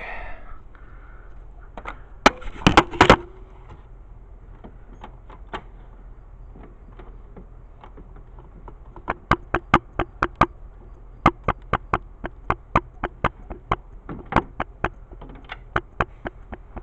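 A screw being worked out of the old dehumidifier's back panel. A few loud knocks come about two to three seconds in, then runs of sharp clicks, several a second, from about nine seconds on.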